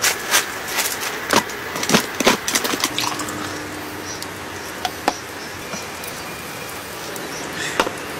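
Steady rain, with a quick run of clatters and knocks in the first three seconds, then beer being poured into a glass, with a couple of single clinks later.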